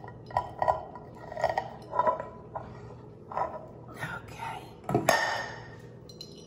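A spatula scraping and knocking around inside an enamelware saucepan, scooping out thick cooked flour-and-milk paste, in a string of short scrapes with one louder knock about five seconds in.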